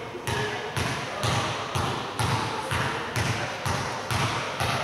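A basketball dribbled steadily on a hardwood gym floor, about two bounces a second, each bounce echoing in the hall.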